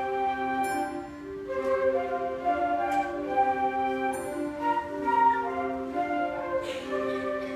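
Beginning school concert band playing a slow piece, wind instruments holding sustained notes that move to a new note every half second to a second. A short high ringing strike sounds twice over the band.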